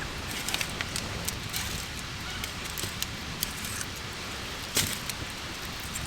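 Wood campfire crackling, with irregular sharp pops over a steady low rumble; one louder pop near the end.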